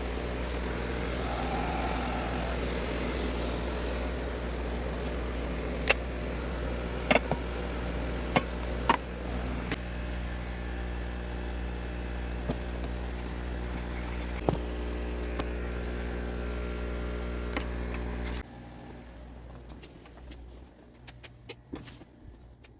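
Car engine idling steadily, with several sharp clicks, then switched off about eighteen seconds in; small clicks and rustles follow.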